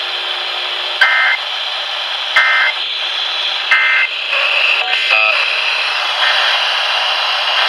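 Three short Emergency Alert System data bursts, the warbling two-tone digital code of a broadcast alert, about a second and a half apart, over steady radio static. A few brief chirps follow about five seconds in.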